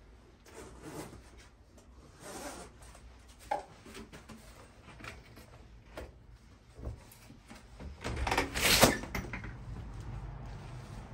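Front door being unlocked and opened: scattered clicks and rattles from the lock and handle, then a louder rush of noise about eight seconds in as the door swings open.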